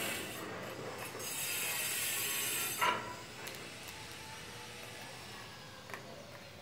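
Small puppy chewing and scraping at a round container lid, a gnawing, rasping noise, with one sharp click about three seconds in.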